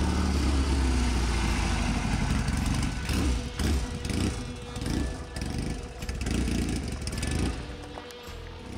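Classic motorcycle engine running as the bike rides past and pulls away. The engine note swells and falls several times, then fades near the end.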